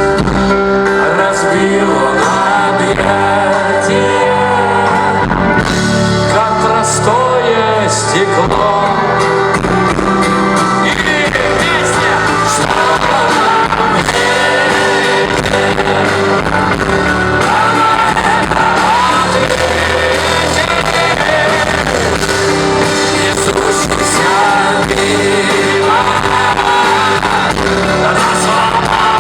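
Live rock band playing loudly and steadily, with singing over it, as heard at a concert hall.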